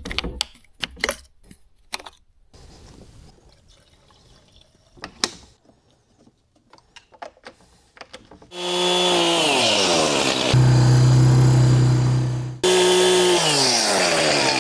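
Scattered sharp clicks and knocks, then from about 8.5 s a small gasoline engine running loudly. Its pitch drops off twice as it revs down, and it settles into a steady low hum for about two seconds in between.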